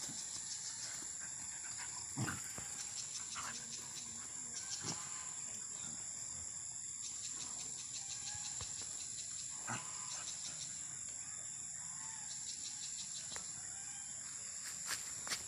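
Two puppies wrestling in play on grass, with faint growls and scuffling and a few short knocks, the loudest about two seconds in and near ten seconds in. A steady high-pitched chirring runs underneath.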